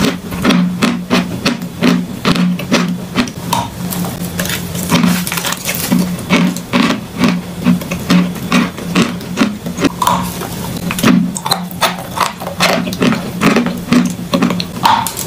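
Close-up chewing of a mouthful of raw lump chalk: a fast, uneven run of crisp crunches.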